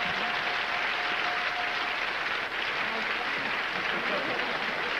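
Studio audience applauding steadily after a contestant's correct answer. A faint steady tone sounds for about the first two seconds.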